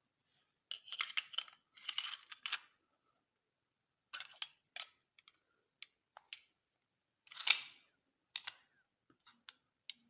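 Irregular clicks and rattling clatter from a pistol being handled, in short clusters with the sharpest click about seven and a half seconds in.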